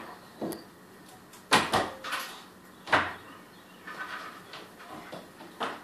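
A toddler's sandalled feet knocking and stamping on a hardwood floor while dancing. Two loud thumps about a second and a half apart, with softer taps before and after.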